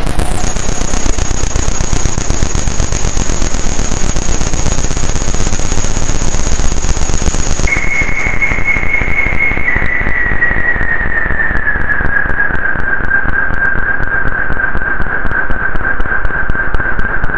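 Harsh noise drone from a Roland AIRA Compact S-1 synthesizer: a dense crackling hiss with a high steady whistle over it. About eight seconds in the whistle drops to a lower tone, which then slowly glides further down.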